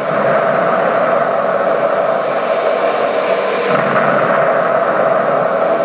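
Ukraina-5 16 mm film projector running with a steady mechanical whir, mixed with the film's own soundtrack, without speech, played through the projector's speaker.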